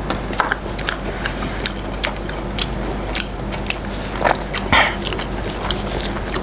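Close-up crunchy biting and chewing of breaded, deep-fried crispy chicken katsu: irregular crisp crackles of the crust, with a couple of louder crunches about four to five seconds in.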